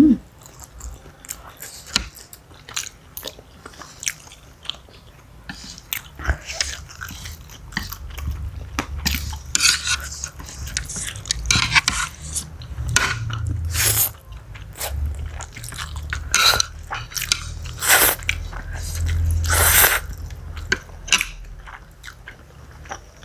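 Close-miked eating: two people chewing and slurping noodles, with many short wet smacks and several louder slurps between about ten and twenty seconds in.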